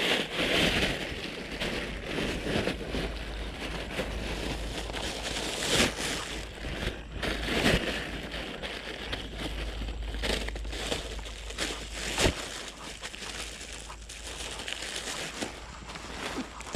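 Plastic bags crinkling and rustling as hands handle them, an irregular crackle of small rustles with a few louder crumples.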